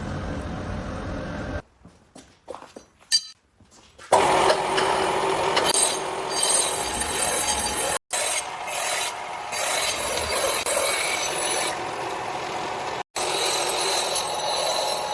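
A tool working steel: a continuous scraping, grinding noise with a steady underlying hum, interrupted by abrupt cuts. Before it, in a quieter stretch, there are a few sharp taps.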